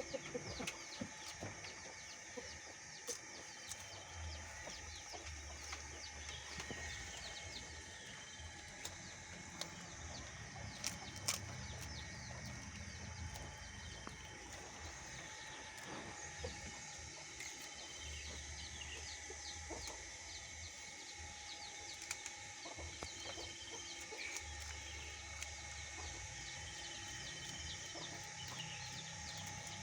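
Birds calling: many short, high, falling chirps throughout, with a low rumble coming and going underneath.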